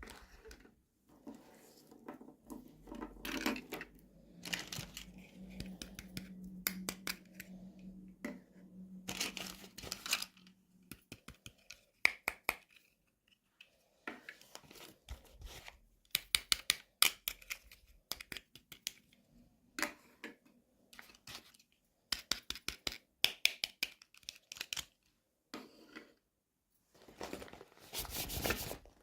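Toy packaging being handled and opened by hand: repeated short clicks, tearing and crinkling of plastic and card in irregular bursts.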